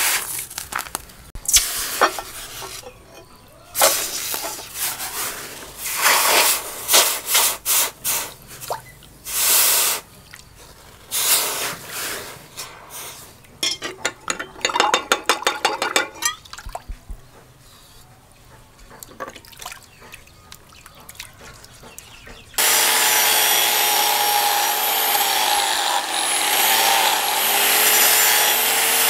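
Hot steel billhook blade being quenched in a water trough, sizzling and splashing in repeated bursts as it is plunged and lifted. About three quarters of the way in, an angle grinder starts grinding the blade, a loud steady whine that dips in pitch briefly as it is pressed in.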